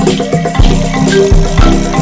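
Music with a steady beat: deep bass hits about every two-thirds of a second under short, pitched notes.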